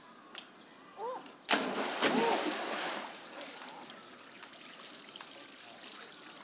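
Rhesus macaque jumping into a pool: a sudden loud splash about one and a half seconds in, dying away into water sloshing and trickling. A couple of short high calls come just before and during the splash.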